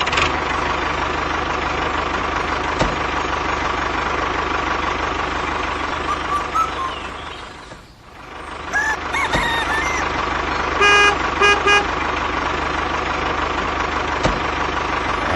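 A vehicle engine running steadily. It fades out briefly about halfway through, then comes back, and a few short horn toots sound in quick succession a couple of seconds later.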